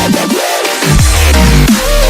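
Electronic dubstep-style background music with a heavy bass beat and falling synth sweeps; the bass briefly drops out about half a second in.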